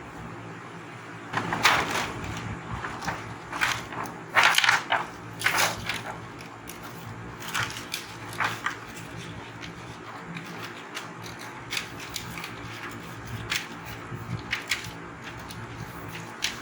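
Hands working on the opened TV's backlight during the LED strip change: scattered rustling, scraping and light knocks, busiest in the first six seconds, over a steady low hum.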